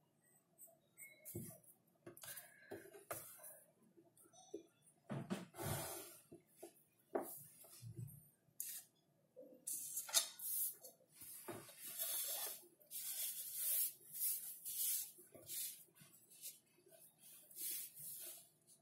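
Pencil sketching on paper: irregular short scratching strokes, thickest in the second half, with a few soft knocks as the hands and paper are handled on the desk.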